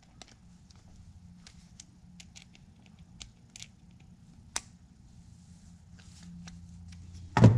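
Small screws being driven into a spinning reel's plastic side plate with a screwdriver: scattered faint clicks and scrapes of the driver tip and screws. Near the end comes a single loud knock.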